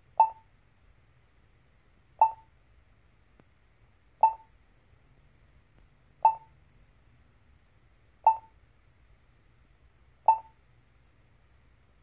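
Polara XAV2E-LED pedestrian push button station sounding its locator tone: a short beep repeating evenly every two seconds, six times.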